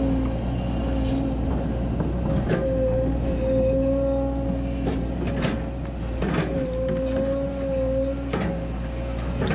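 Volvo 140 hydraulic excavator running under work: a steady diesel engine hum with a constant hydraulic whine that breaks off briefly a few times, and a handful of sharp knocks as the bucket works the ground.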